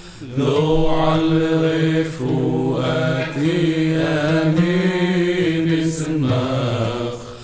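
Slow chanted singing: a voice holds a wavering melodic line over a steady low drone, in long phrases with short breaks, fading out near the end.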